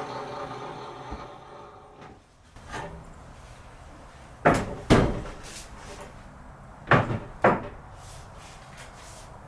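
A steady machine hum dies away in the first two seconds, then two pairs of sharp knocks, the pairs about two seconds apart and each pair's knocks about half a second apart.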